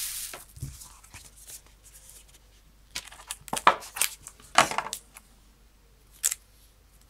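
Cardboard phone box and its packaging being handled as the phone is lifted out: light rustles and scrapes, a run of louder scuffs in the middle and a sharp click about six seconds in.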